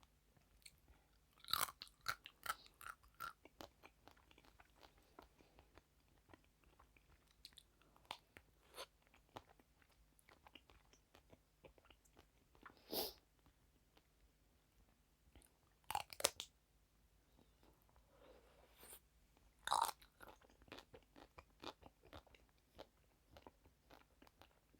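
Close-miked eating of crunchy sweets: bites that crack and crunch, with soft chewing clicks in between. The louder crunches come in clusters about 2 seconds in, then around 13, 16 and 20 seconds.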